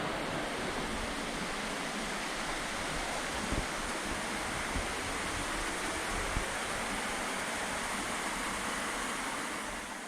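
Waterfall rushing steadily, close by, with a few brief low thumps; the sound fades out near the end.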